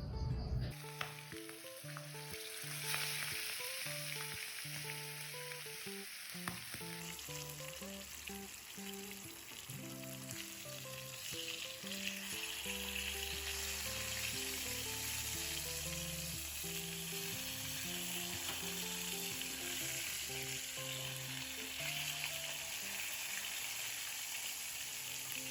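Pieces of skipjack tuna frying in hot oil, a steady sizzle, with a light background melody underneath.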